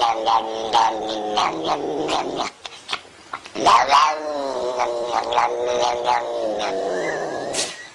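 A cat yowling (caterwauling) in two long, wavering howls, with a short break about two and a half seconds in.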